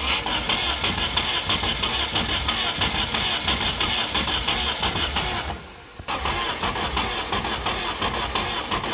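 Volkswagen Golf Mk1 four-cylinder engine turning over on the starter, stopping briefly about five and a half seconds in and then cranking again. The engine has no compression in cylinders 1 and 4.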